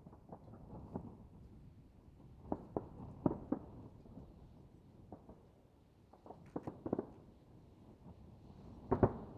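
Distant aerial firework shells bursting: muffled bangs in three quick clusters, the last, near the end, the loudest.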